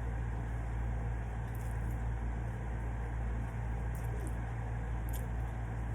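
Steady low hum and hiss of an air conditioner running, with a few faint light clicks.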